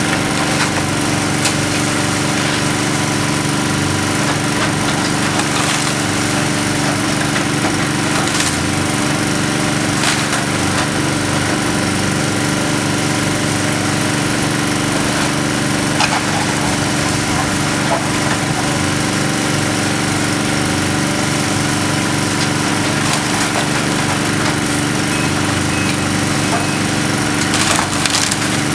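Case tracked excavator's diesel engine running steadily as it works a demolition debris pile, with a few sharp cracks and knocks of breaking wood and rubble scattered through.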